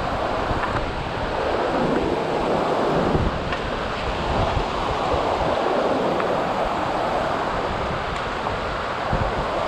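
Mountain river rapids rushing steadily over boulders, with wind buffeting the microphone in an uneven low rumble.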